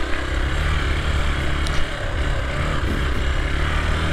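Hero XPulse 200 4V single-cylinder motorcycle engine running steadily as the bike rides slowly along a rough dirt track.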